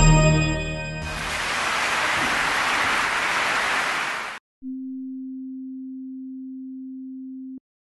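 The last notes of keyboard music die away, then a steady, even hiss of synthesized noise runs for about three seconds and cuts off abruptly. After a brief gap comes a single steady pure low tone, held for about three seconds before stopping sharply.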